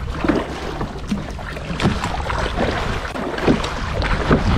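Kayak paddle blades splashing into choppy sea about once a second as the paddler strokes, with water sloshing around the boat and wind rumbling on the microphone.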